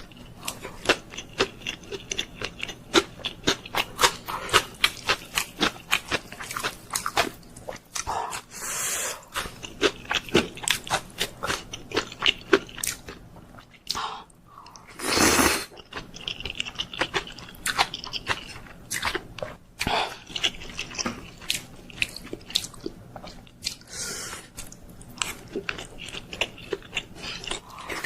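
Close-miked chewing of Korean instant noodles and dumplings, with a steady run of quick, wet mouth clicks and three longer noisy swells, the loudest about halfway through.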